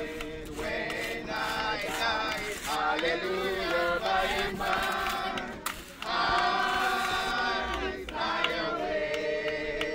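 A group of people singing a hymn together, many voices at once.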